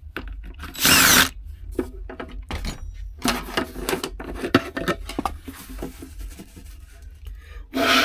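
Power drill running in two short bursts, about a second in and again near the end, boring a hole through a plastic fuel tank. Rubbing and knocking from handling the tank come in between.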